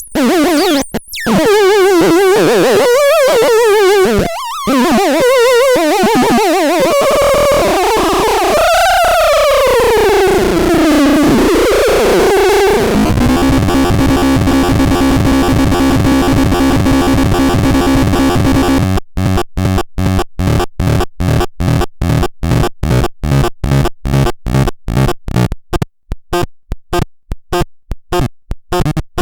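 Electronic synthesized sounds from a Hoxton LTT336 sound demo: a loud warbling tone that wavers up and down and then slides downward, giving way to a steady buzzing chord, which near two-thirds of the way through breaks into a fast stuttering run of short beeps.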